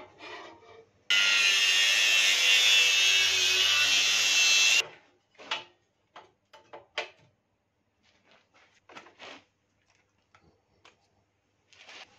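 A power tool runs loudly for nearly four seconds, starting and stopping abruptly, then light metal knocks and clanks as steel tubing is handled against a pocket bike frame on a workbench.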